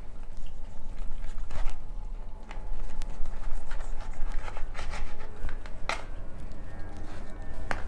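Knife blade scraping the skin of a singed pork leg on a plastic chopping board to clean it: irregular rasping strokes, with a few sharper scrapes.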